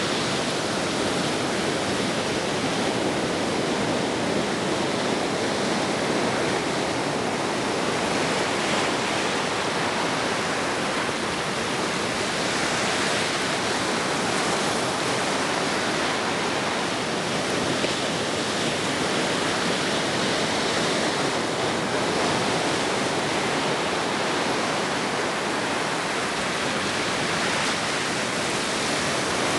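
Ocean surf breaking and washing on the shore: a steady rush of waves that swells a little now and then.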